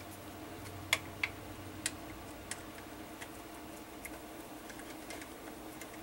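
Scattered light metallic clicks, irregularly spaced, from a speed wrench and socket snugging down the bolts of an aluminum transmission oil pan, over a faint steady hum.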